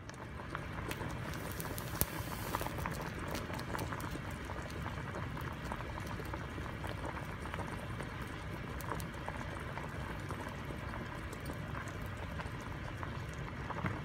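Pot of pasta water at a rolling boil: steady bubbling with many small pops and crackles, and one sharper click about two seconds in.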